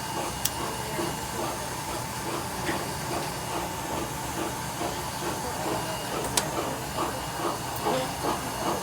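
Gas soldering torch hissing steadily, burning on fuel gas alone before the oxygen is turned on. Two sharp clicks, about half a second in and about six seconds in.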